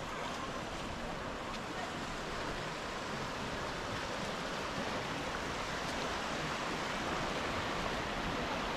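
Azusa River rushing fast over its stony bed and rapids, a steady water noise that grows a little louder near the end.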